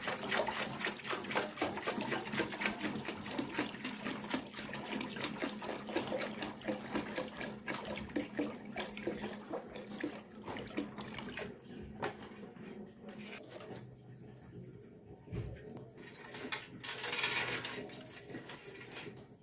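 Water pouring in a stream from a plastic jerrycan into a metal basin as it fills. The pour thins out after about twelve seconds, and a short burst of noise comes near the end.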